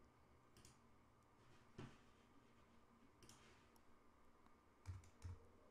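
Near silence, with a few faint computer mouse clicks: one about two seconds in and two close together near the end.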